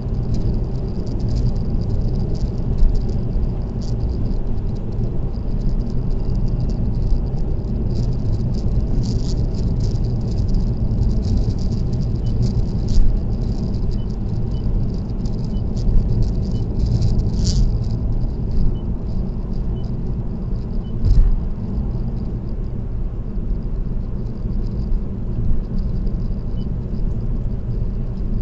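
Steady tyre and engine rumble of a car cruising on an expressway, heard from inside the car, with frequent small rattles and clicks over it and a few sharper clicks past the middle.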